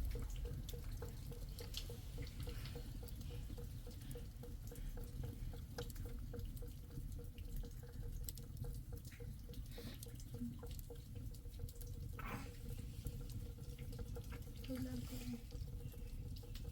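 Water running and dripping, with many scattered drips and splashes over a steady low wash.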